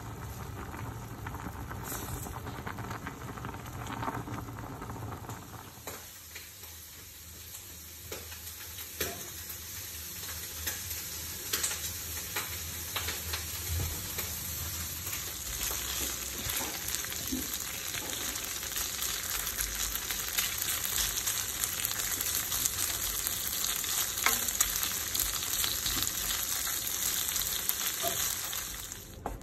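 Fettuccine boiling in a pot of water and stirred with a wooden spoon for the first few seconds, then a steady frying sizzle with many small crackles from strips of ham cooking in a pan as the wooden spoon stirs them. The sizzle grows louder and cuts off suddenly near the end.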